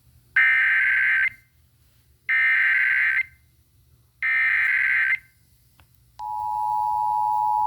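Emergency Alert System broadcast header: three bursts of warbling digital data tones (the SAME header), each about a second long and about two seconds apart, then the steady two-tone EAS attention signal starting about six seconds in.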